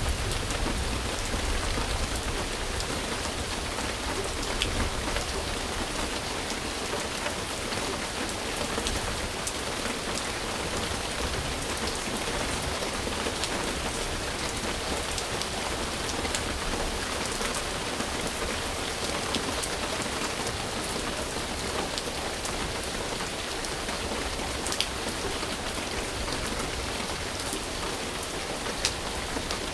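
Steady rain falling on a surface, an even hiss of rainfall with scattered individual drop ticks.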